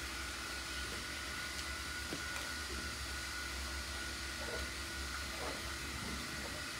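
Steady hiss of water running from a hose, flushing an abscess wound on a cow's leg, over a steady low hum.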